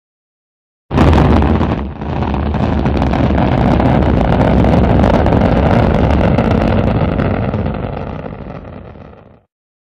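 Rocket engine firing, dubbed onto an animated spacecraft separation: it starts suddenly about a second in, dips briefly, then runs as a steady deep rumble that fades and cuts off near the end.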